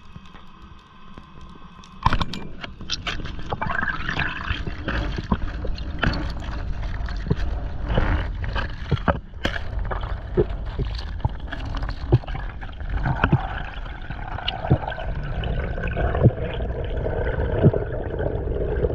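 Underwater water noise heard through a diving camera's housing: gurgling and rushing water with many sharp clicks and knocks, starting suddenly about two seconds in after a quieter stretch with a faint steady hum.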